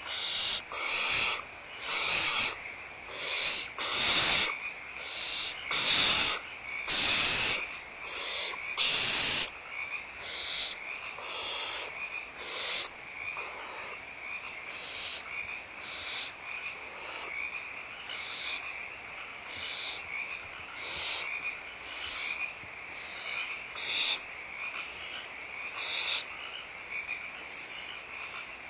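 Barn owl nestlings' hissing begging calls: rasping bursts repeating about once a second, louder for the first ten seconds, then softer. The chicks are begging for food.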